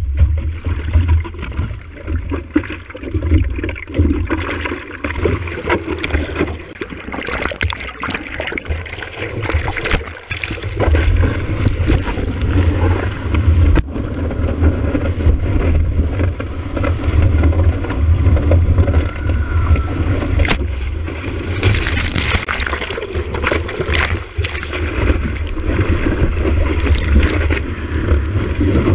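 Seawater rushing and splashing around a surfboard-nose camera as a wave is ridden, over a steady deep rumble of water and wind buffeting the housed microphone. Spray hits in louder hissing bursts about two-thirds through and again near the end.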